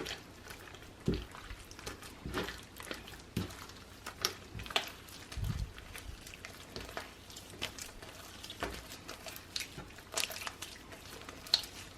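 Sticky glue slime with paint mixed in, worked by hand: irregular wet squelches, clicks and small pops, a few a second.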